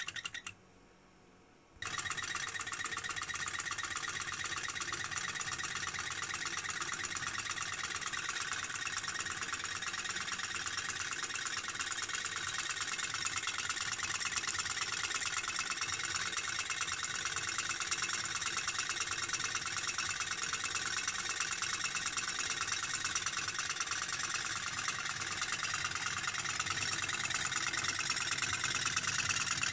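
Small flame-heated model Stirling engine running, its pistons and crank linkage making a fast, steady clatter. A brief burst cuts off at the very start, and the running sound picks up again about two seconds in, growing slightly louder toward the end.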